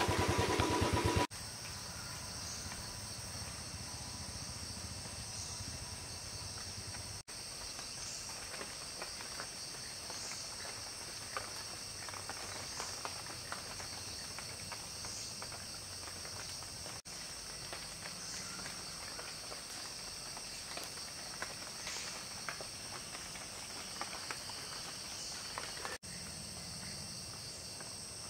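Steady high-pitched shrilling of forest insects, swelling every two to three seconds, with scattered faint clicks. An engine running at the start cuts off about a second in.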